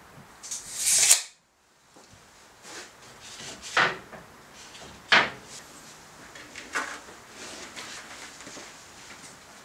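Wooden boards and a large sheet being slid and set down on a table saw's metal top, with two sharp knocks about four and five seconds in and a lighter one near seven. About a second in, a short rising rush of noise cuts off abruptly.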